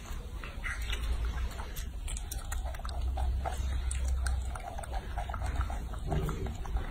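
Baby macaque chewing and smacking wetly on a peeled orange: a run of short, crackly clicks over a steady low rumble. A brief low vocal sound comes near the end.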